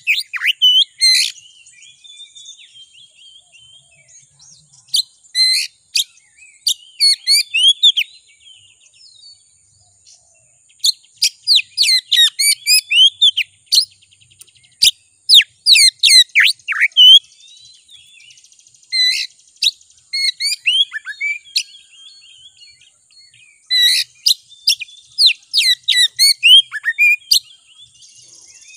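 Oriental magpie-robin (kacer) singing: loud bursts of rapid whistled and scratchy notes, several seconds long, with quieter twittering in the gaps. This is the agitated, full song that keepers play as a 'pancingan' to rouse a caged kacer into singing and fighting display.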